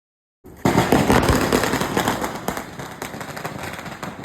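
A 5000 wala firecracker string going off: a dense, rapid chain of small bangs that starts abruptly about half a second in, loudest at first and easing slightly.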